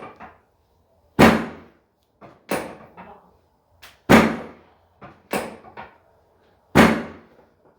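Repeated sharp thumps during a chiropractic adjustment: five loud strikes about a second and a half apart, with softer knocks between them.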